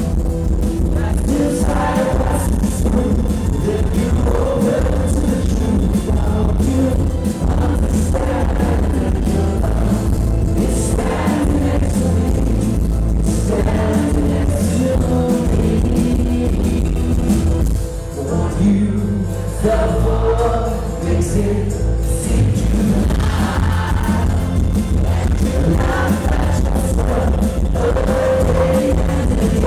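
A live band playing a song, with a male lead singer and a strummed acoustic guitar. The music briefly drops back about two-thirds of the way through.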